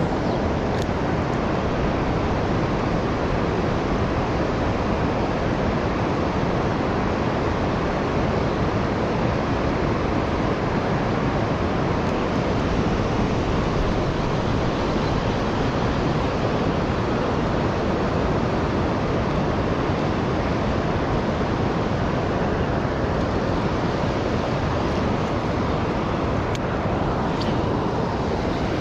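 Steady rush of shallow river water flowing over rocks, a constant even noise that does not let up.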